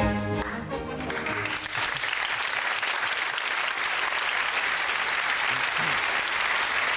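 Studio audience applauding, after a music cue that ends about a second and a half in.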